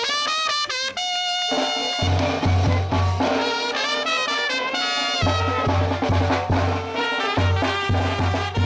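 Mexican brass band (banda) music: trumpets and trombones play a melody, and low bass notes with drums come in about two seconds in.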